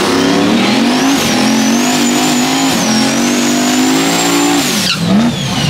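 Drag race car doing a burnout, its engine held at high revs while the rear tyre spins in smoke, with a high whine climbing over it. The throttle is let off about five seconds in and the revs drop away.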